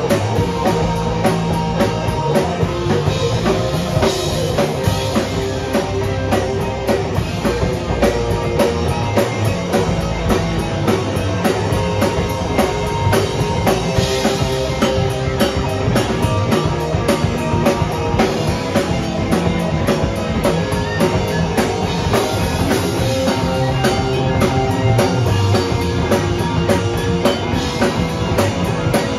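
Live rock band playing loud: electric guitars, bass guitar and a drum kit driving a fast, steady beat of drum and cymbal hits.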